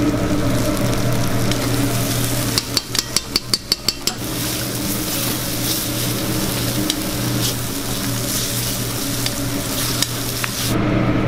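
Mutton karahi sizzling in hot desi ghee in an iron karahi wok as it is finished, stirred with a metal spatula. About two and a half seconds in, a quick run of metal knocks comes, about five a second, as the spatula strikes the pan, followed by steady sizzling with scattered scrapes. The sizzling cuts off near the end.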